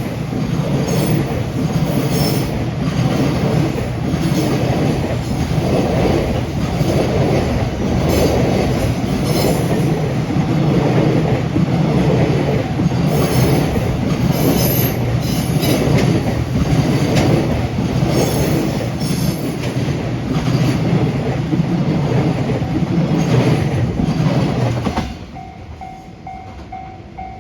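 Long freight train of wagons behind an EF210 electric locomotive rolling past a level crossing, wheels clicking at rail joints every second or two. About 25 seconds in, the train noise drops away suddenly as the last wagon passes. It leaves the level crossing's warning bell ringing in a steady repeating clang.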